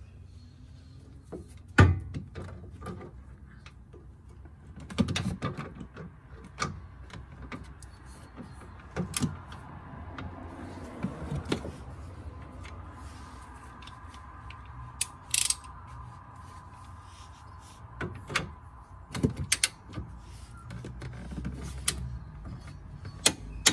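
Scattered sharp metallic clicks and knocks of a socket and torque wrench being fitted and pulled on the sway bar bracket bolts, torquing them to 46 newton metres. The loudest is a single click about two seconds in.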